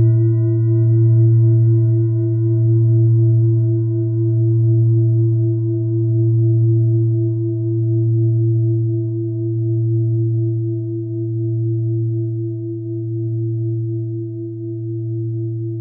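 Mindfulness bell ringing on after a single strike, its low hum fading slowly. The ring wavers, swelling and ebbing in loudness about every two seconds.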